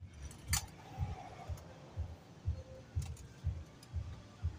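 Footsteps of someone walking with the camera: low thuds about two a second, with a sharp click about half a second in.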